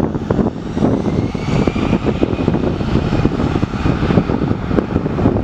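Airbus A320 jet engines running at takeoff power as the airliner accelerates down the runway: a loud, steady rumble with a whine that rises in pitch over the first couple of seconds, then holds.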